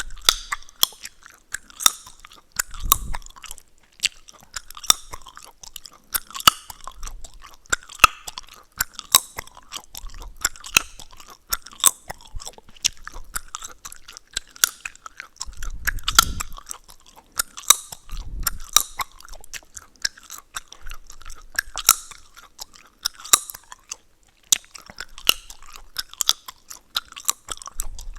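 Chewing gum being chewed close to the microphone: wet smacking with frequent sharp cracks and pops of the gum, at irregular intervals throughout.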